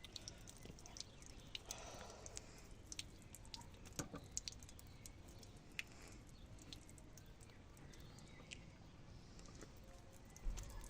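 Faint scattered clicks and light taps, with a sharper knock about four seconds in and another near the end, from hands working a dented plastic car bumper being reshaped after hot water.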